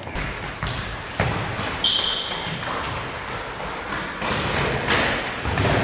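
Indoor football in a reverberant sports hall: the ball is kicked and bounces on the hard floor with several echoing thuds, and shoes squeak on the floor, one clear squeak about two seconds in and a shorter, higher one near the end.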